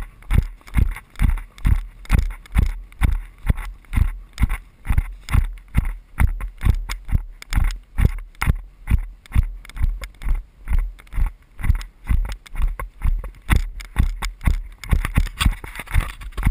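A ridden horse's hoofbeats on a sandy track, heard from the saddle as a steady rhythm of thumps about two a second, with the jolting of the rider's camera.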